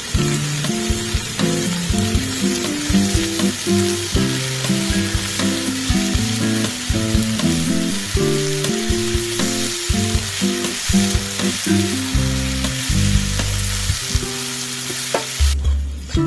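Food sizzling as it fries in hot oil in a pan, a steady hiss, with background music playing over it. The sizzle cuts off shortly before the end.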